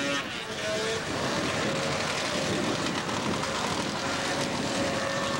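An engine running steadily: a continuous hum with a faint steady tone over dense, even noise.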